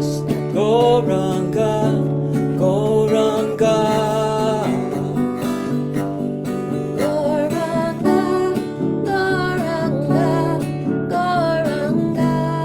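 Kirtan devotional music: a gliding melody over a steady, unbroken drone.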